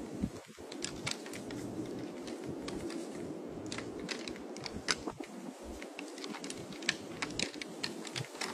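Irregular sharp clicks and clacks over a steady rustling: the antlers of two fighting deer bucks knocking and scraping together while they wrestle in dry grass.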